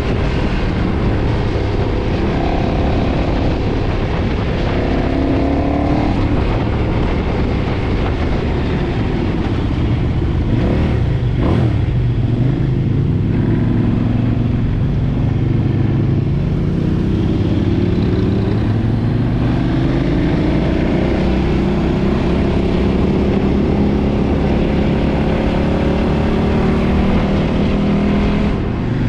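KTM 990's LC8 V-twin engine with its stock exhaust, under way and accelerating. The engine note climbs in pitch several times, dips briefly about a third of the way in, then rises slowly and steadily through the last third.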